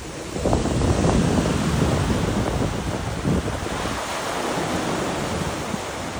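Ocean waves washing onto the shore in a continuous surging hiss that swells about a second in. Wind is buffeting the microphone with low rumbling gusts.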